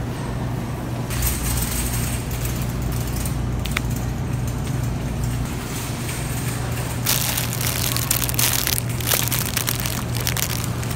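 Supermarket background noise: a steady low hum, with crackling noise about a second in and again around seven seconds in, and a single click near four seconds.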